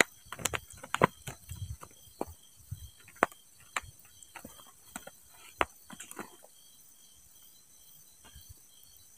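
Crickets chirping steadily and evenly in the background. Over the first six seconds, irregular sharp clicks and taps, several a second, come over the top of them and then stop.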